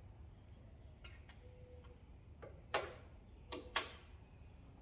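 Scattered light clicks and taps of small hard parts being handled, the two loudest close together about three and a half seconds in.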